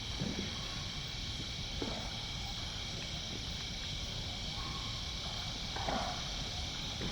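Steady night insect chorus of crickets, with a few short soft pops and thuds about a third of a second, two seconds and six seconds in: a greater one-horned rhinoceros chewing and digging into clay at a mineral lick.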